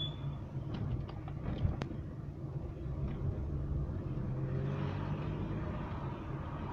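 Car running at low speed, heard from inside the cabin: a steady low engine hum with road noise. A few faint clicks and one sharp tick come a little under two seconds in.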